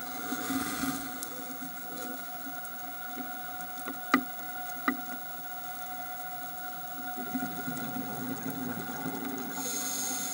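Underwater ambience picked up by a camera in its housing: a steady whine under a hiss of water, with rushes of a scuba diver's exhaled bubbles about half a second in and again near the end, and two sharp clicks near the middle.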